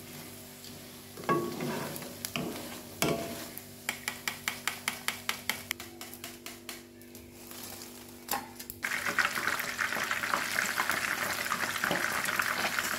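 Kitchen utensils knock and clink against cookware, followed by a run of quick, even clicks at about three to four a second. About nine seconds in, food hits hot oil in a pan and a loud, steady sizzle of frying starts suddenly.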